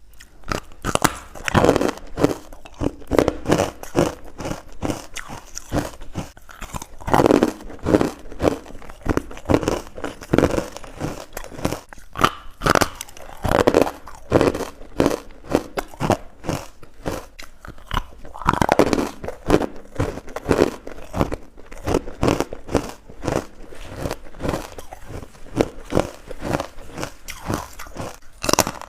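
A person biting and chewing crunchy carbonated ice bites close to the microphone: a steady run of crisp crunches, with louder clusters of bites every few seconds.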